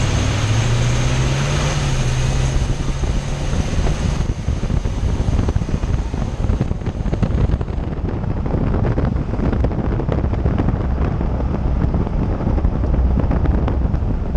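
2006 Toyota Tundra pickup running, with a steady low engine hum for the first few seconds, then a rough crackle of wind or road noise on the microphone.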